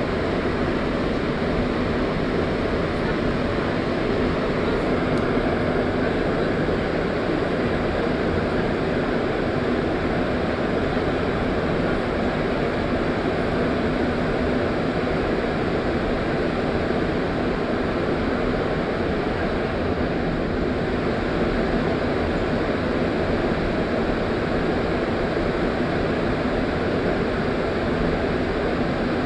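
Montreal Metro MR-73 rubber-tyred train running at steady speed through a tunnel, heard from inside the car: an even rushing noise of tyres and running gear, with a faint steady hum under it.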